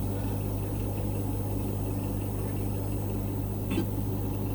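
Chairside dental milling machine running steadily with a low hum while it cuts a solid porcelain crown, with one brief click near the end.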